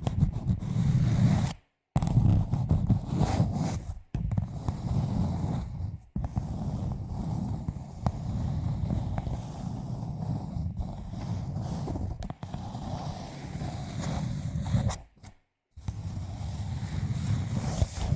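Fingers scratching and rubbing directly on a microphone: a close, deep scraping rustle, broken by a few short silent gaps.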